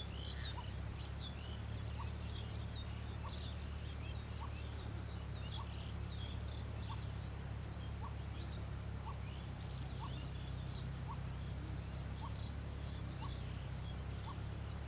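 Birds calling outdoors: many quick high chirps, with a short rising note repeated about every two-thirds of a second, over a steady low rumble.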